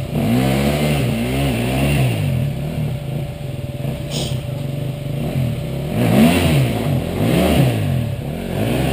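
Dirt-bike engine revving up and falling back again and again as the rider works the throttle on a rough dirt trail.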